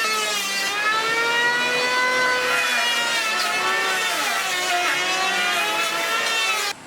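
A small motor running steadily, its pitch rising and falling, then cutting off suddenly near the end.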